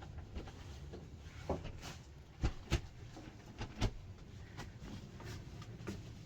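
A few sharp knocks and clunks of gear being handled in a small boat cabin, the loudest three between about two and a half and four seconds in, over a low steady hum.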